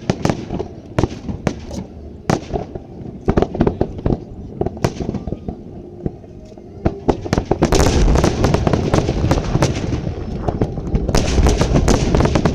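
Aerial fireworks display: a string of separate sharp bangs, then from about halfway a dense, rapid barrage of bangs and crackling that stays loud.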